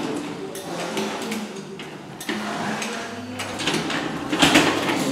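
Scraping and knocking of a loaded Magliner appliance hand truck being worked up stairs, louder about two seconds in and again near the end.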